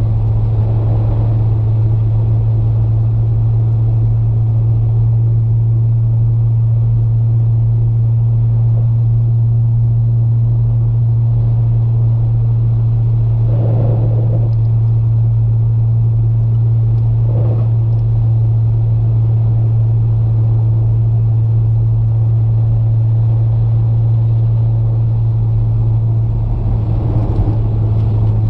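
2008 BMW 335i's N54 twin-turbo inline-six and drivetrain heard from the cabin while cruising at a steady speed: a loud, even low drone that barely changes pitch, over road rumble. Two brief, softer noises come through partway in.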